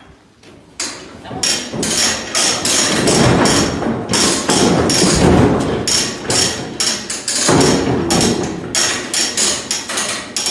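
Rapid, irregular hard knocks and bangs, several a second, from blows on the steel cattle chute that holds a restrained bull. They start about a second in and keep going without a break.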